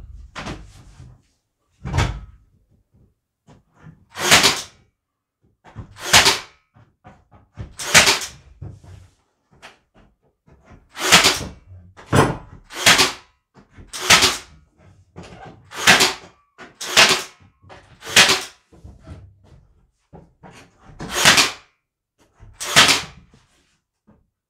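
WORX Nail Force cordless 18-gauge brad nailer firing brad nails into shiplap boards: about a dozen sharp shots, one every second or two, with a few softer knocks near the start.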